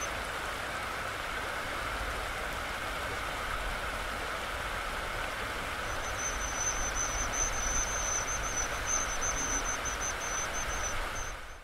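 Steady rush of stream water. From about halfway through, a thin, very high, rapidly pulsing string of calls comes in, the begging of Irish dipper nestlings at the nest.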